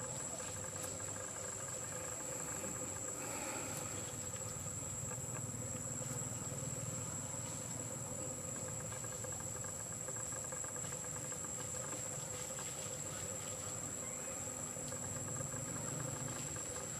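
Steady high-pitched drone of insects in the vegetation, unbroken, with a fainter lower hum beneath it.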